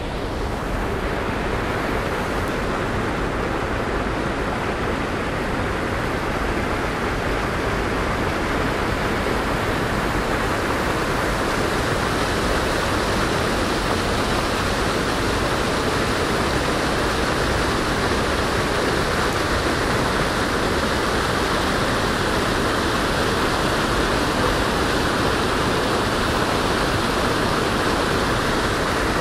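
Water gushing from an outfall into a canal basin, a steady rush of churning white water splashing into the open water.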